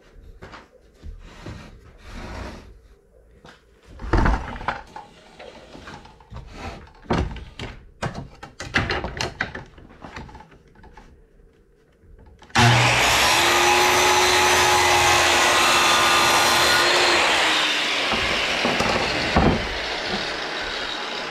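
Wooden strips being handled and knocked for about twelve seconds, then an electric power saw starts abruptly and runs loud and steady, easing off a little a few seconds later, as the 1x4 strip is cut to length.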